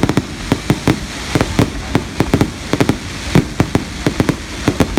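Fireworks display going off in rapid, irregular bangs, several each second, with no pause between them.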